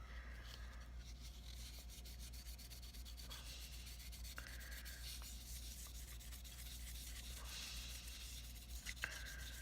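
A wipe rubbing steadily over the base of a CPU heatsink, scrubbing off the old thermal paste.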